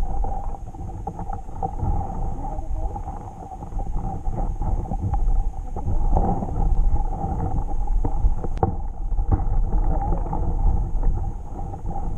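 Muffled underwater rumble and water noise picked up by a submerged camera, with a few faint clicks; a faint high whine stops about two thirds of the way through.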